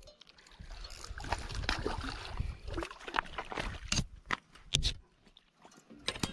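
A spinning reel being cranked while a hooked fish is brought in through shallow water with sloshing, followed by scattered sharp clicks and knocks of rod and hand handling. It quiets briefly about five seconds in.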